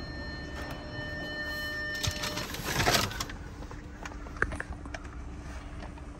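A steady electronic tone with several overtones for about two and a half seconds, then a louder burst of rustling and knocking about three seconds in, and a single sharp click about a second and a half later: handling noise at a car's driver's seat.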